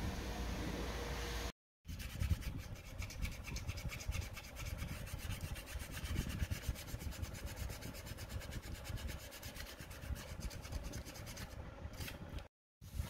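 Quick repeated scraping strokes on the gasket face of an aluminium engine cover, rubbing off old gasket residue by hand.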